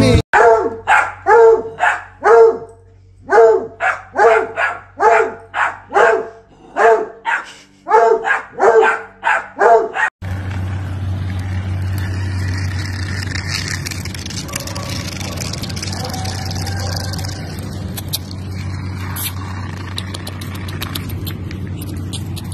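A dog barking in a quick series of short barks, about two a second, with a brief pause about two seconds in. The barking stops abruptly about ten seconds in, and a steady low outdoor rumble and hiss follows.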